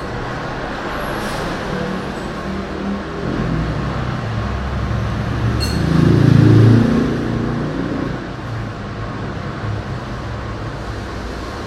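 Steady low rumble of street traffic that swells as a heavy vehicle passes about six seconds in and then fades. A brief clink sounds just before the loudest point.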